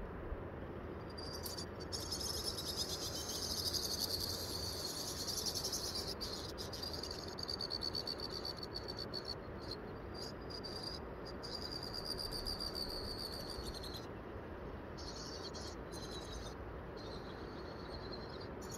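Insects trilling: a high, fast pulsing buzz that comes in about a second and a half in, runs steadily, then breaks into short stretches with gaps after about 14 seconds, over a steady low background hiss.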